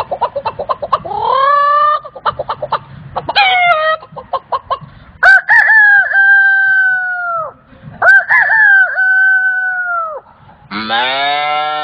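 A man imitating a chicken with his voice: rapid clucking broken by short rising squawks, then two long rooster crows of about two seconds each. Near the end he starts a different long animal call.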